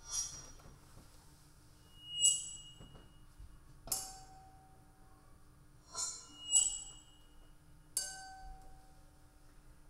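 Sparse bright clinks, about six struck ringing tones that each die away, coming roughly every two seconds over a faint steady hum. They are found-object recordings in an electronic soundscape, played over loudspeakers.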